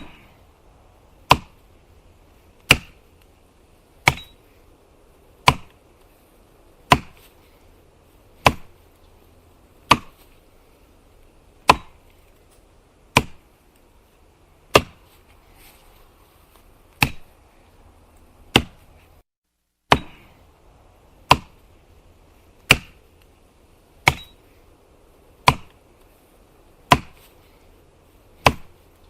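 Firewood being chopped: a steady series of single sharp blows of a blade biting into wood, about one every one and a half seconds, some twenty strikes in all.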